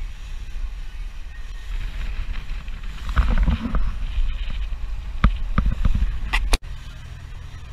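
Wind buffeting the microphone and wake water rushing alongside a boat under way, over a low engine rumble. A few sharp knocks come about two-thirds of the way through, then the sound drops abruptly near the end to a steadier engine hum.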